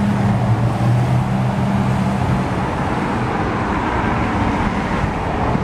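Road traffic going past on a street. A vehicle's steady low drone sounds over the road noise and fades out about two and a half seconds in.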